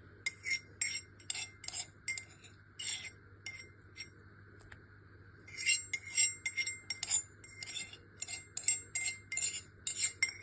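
A tablespoon clinking and tapping against a bowl in short, irregular strokes as ginger-garlic paste is spooned in. The clinks pause for a couple of seconds in the middle, then come faster, about three a second, near the end.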